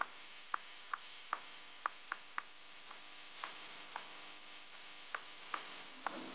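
Metal utensils clinking against a stainless steel bowl while a thin sauce is stirred: faint, sharp clinks about two or three a second at first, sparser in the second half.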